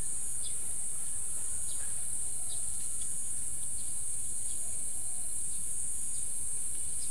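A steady, high-pitched chorus of insects, with a few faint, short bird chirps over it.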